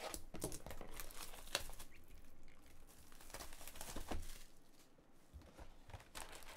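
Plastic shrink wrap being slit with a box cutter and peeled off a sealed cardboard trading-card box, crinkling and tearing in short irregular rustles.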